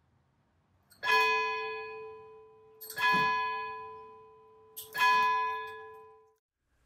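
A church bell struck three times, about two seconds apart, each stroke ringing at the same pitch and fading away.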